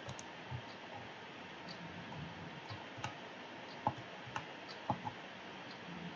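Computer mouse clicks: a handful of short, sharp clicks at irregular intervals over a steady faint hiss.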